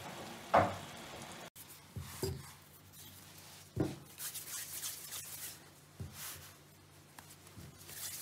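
A single sharp knock about half a second in, then hands rolling chicken-liver dumpling dough into balls on a floured wooden board: soft rubbing of palms on the dough, with a few light taps.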